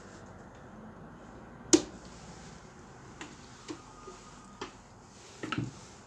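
A miniature circuit breaker in a steel control panel is switched on with one sharp, loud click a little under two seconds in. Several lighter clicks follow, then a short cluster of knocks near the end as the steel enclosure door is shut.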